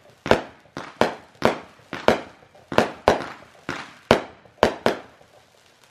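A 'Murder Hornets' consumer firework cake firing in a rapid series of sharp bangs, about two or three a second, as its shots burst overhead.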